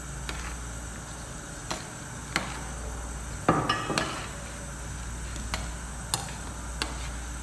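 A metal spoon stirring broth in a metal pot, clinking against the pot's side every second or so, with a louder clatter of knocks and a brief metallic ring about halfway through. A low steady hum runs underneath.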